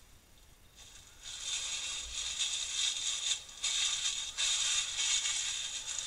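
Rustling and scraping of small metal tools being handled and moved about in a drawer. It starts about a second in and goes on with short breaks.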